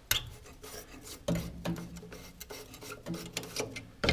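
Flathead screwdriver working against the furnace's sheet-metal blower housing: a run of irregular metal scrapes and sharp clicks, the sharpest about the start.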